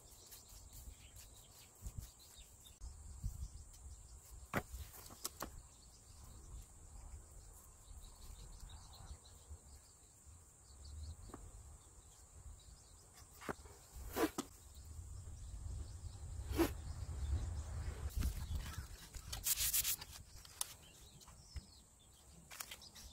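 Paintbrush stroking paint onto a cement siding board, a soft rubbing sound, with scattered light clicks and a low rumble underneath.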